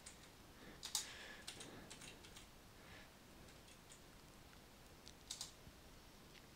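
Faint keystrokes on a computer keyboard as a terminal command is typed: a few scattered key presses about a second in, a short run over the next two seconds, and two quick ones a little after five seconds.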